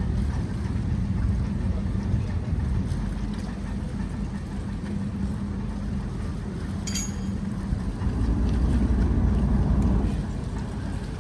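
Low steady engine hum from a docking superyacht, swelling louder for about two seconds near the end. A single short click sounds about seven seconds in.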